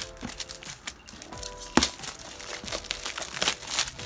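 Shiny gift wrapping paper crinkling and tearing as a boxed gift is unwrapped by hand, in a series of irregular crackles with one sharp rip about two seconds in.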